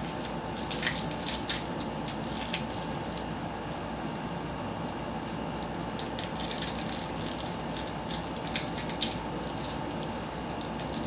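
Scattered light clicks and rustles of plastic electric-fan parts being handled, over a steady background hiss.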